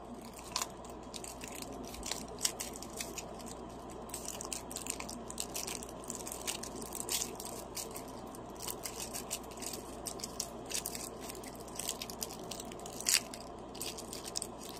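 Packaging being handled and opened: irregular crinkling and small crackles, with one sharper snap near the end.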